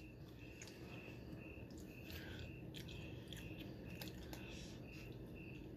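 Quiet chewing of noodles with scattered light clicks of a fork against a foam takeout container. Behind it, a faint high-pitched chirp repeats evenly, about two to three times a second.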